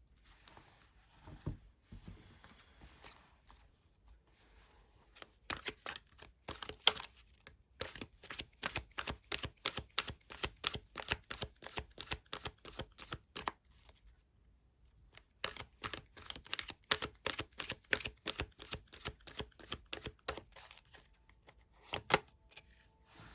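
Tarot cards being shuffled by hand: two long runs of quick card slaps and snaps at about four a second, with a short pause between them and a single sharp snap near the end.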